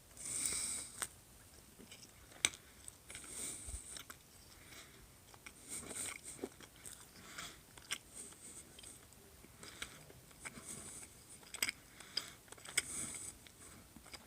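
A person biting into and chewing a Little Caesars breadstick close to the microphone: soft mouth noises with scattered small clicks and crunches.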